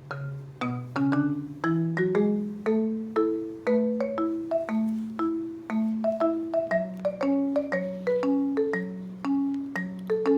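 Background music: a light tune of struck notes that fade quickly, about two a second, with a melody over a lower line of notes.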